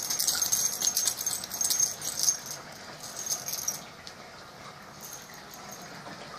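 Small metal objects jingling and rattling in quick, dense bursts for about four seconds, with a shorter, fainter jingle about five seconds in.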